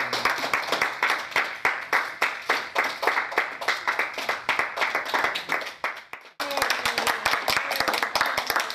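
A small group applauding, a dense patter of hand claps. About six seconds in the clapping cuts off abruptly for a moment, then applause resumes with a few voices under it.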